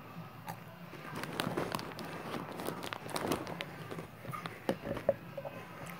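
Crunchy Cheetos being chewed and handled: a run of crackly crunches and clicks, with a few sharper clicks near the end.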